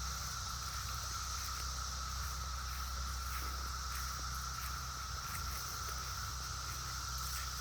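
Chorus of periodical cicadas: a steady, unbroken droning buzz.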